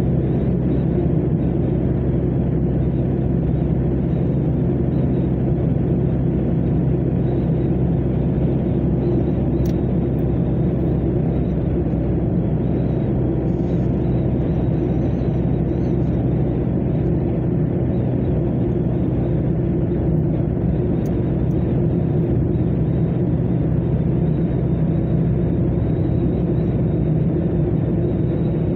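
Steady low rumble of tyre and road noise with engine drone from a car cruising at motorway speed.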